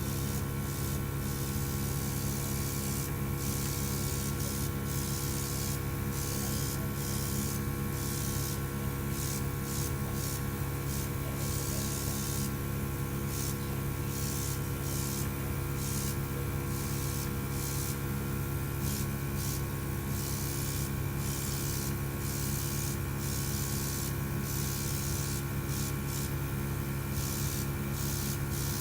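A mini air compressor's motor running with a steady hum, while an airbrush sprays in repeated short hisses of air that start and stop as the trigger is worked.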